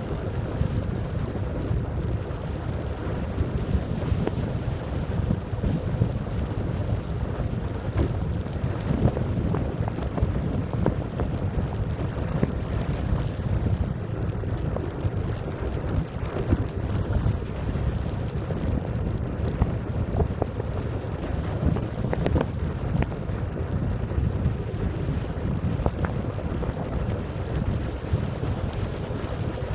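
Faired recumbent bike rolling on coarse asphalt at about 35 km/h: a steady low tyre rumble carried through the shell, with wind on the microphone and scattered small knocks and rattles.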